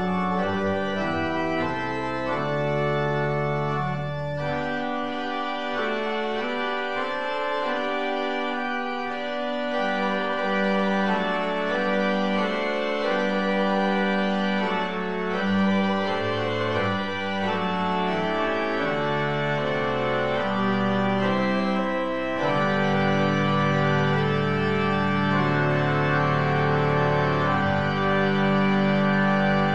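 Church organ playing slow, sustained chords. The deep pedal bass drops out about five seconds in, returns, and comes in fuller from about twenty-two seconds in.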